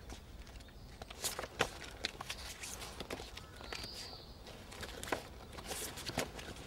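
A stack of photo prints being flipped through by hand: a run of sharp paper snaps and rustles. A single short high chirp sounds about four seconds in.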